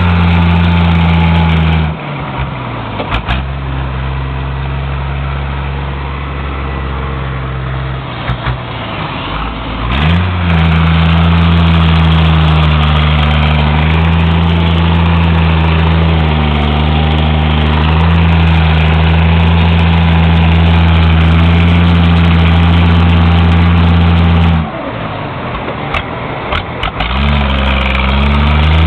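Car engines with 'caneco' straight-through mufflers idling with a deep, steady rumble, in several clips one after another with abrupt changes between them. The engine speed rises briefly about ten seconds in and again near the end.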